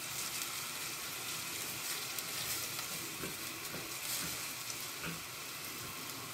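Grated onion and garlic frying gently in ghee and oil: a steady soft sizzle, with a few light strokes of a silicone spatula stirring. The onion is softening without browning.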